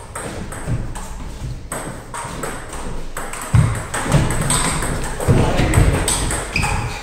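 Table tennis rally: the celluloid ball clicking off rubber bats and bouncing on the table in quick alternation, several hits a second. There are a few heavier low thuds partway through.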